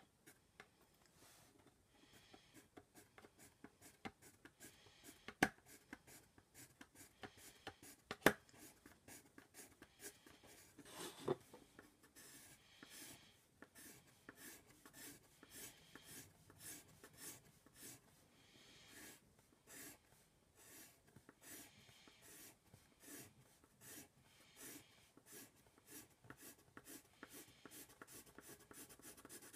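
Faint scratching of a pencil on paper in quick short strokes, drawing and shading lines. A couple of sharp knocks stand out a few seconds in.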